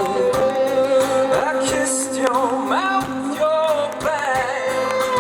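Live band performance: a sung vocal line with held, sliding notes over steady instrumental accompaniment.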